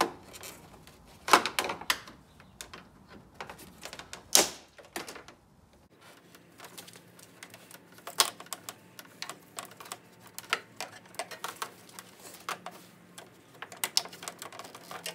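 Irregular clicking and knocking of the plastic lower grille trim and its retaining clips being worked loose by hand, with two louder knocks about a second and a half and four and a half seconds in.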